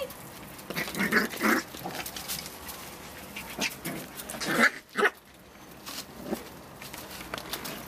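Puppies at play, giving several short, rough growly sounds with scuffling and small clicks between them.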